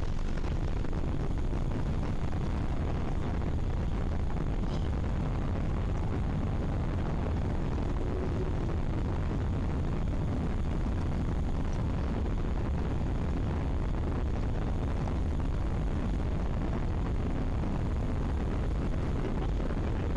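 Airbus A380 on its landing roll, heard from inside the cabin: a steady, loud low rumble and rush of noise.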